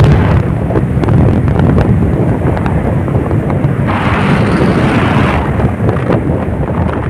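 Wind buffeting the microphone: a loud, uneven low rumble, with a brighter hiss swelling for about a second and a half about four seconds in.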